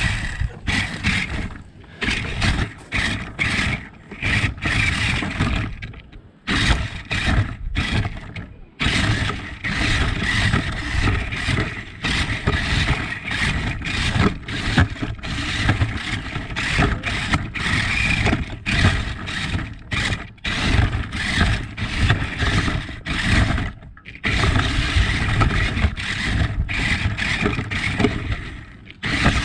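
Radio-controlled toy car driven in stop-start bursts: its electric motor whines and its wheels scrape over the ground, cutting out briefly many times.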